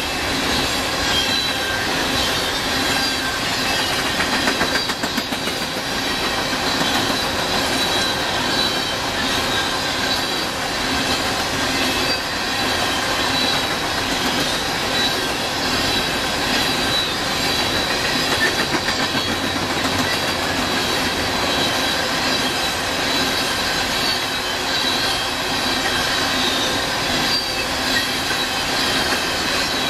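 Empty coal cars of a freight train rolling past, their steel wheels clattering over the rails with a steady high-pitched squeal.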